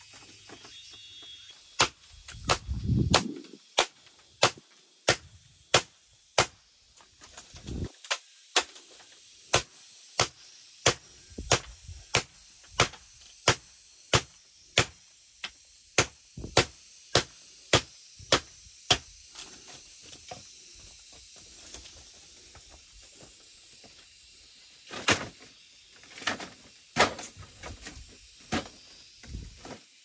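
A steady series of sharp knocks, about one and a half a second, of a tool striking along a split bamboo board to crack and flatten it, with a couple of dull thuds among the first strikes. After a pause, a short burst of louder knocks near the end.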